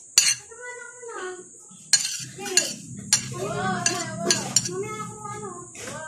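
A metal spoon scraping and clinking against plates as food is scraped from one plate onto another, with several sharp clinks spread through the scraping.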